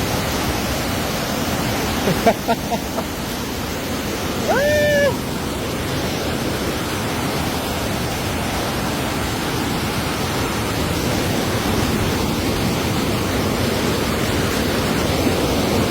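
Steady rush of moving water. A few knocks come about two seconds in, and a short pitched call, like a voice calling out, comes about four and a half seconds in.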